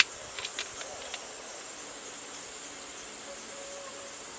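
Insects in a steady high-pitched chorus that does not let up, with a few soft clicks in the first second.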